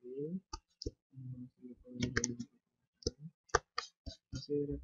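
Computer mouse clicking, about a dozen sharp clicks at an uneven pace as a transform box is dragged around. Short low hums of a voice come between the clicks.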